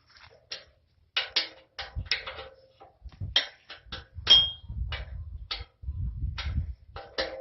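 Irregular sharp metallic clicks and clinks of a 5/16 Allen wrench working set screws on a compost turner's water rack, one ringing briefly near the middle. Bursts of low rumbling run underneath in the second half.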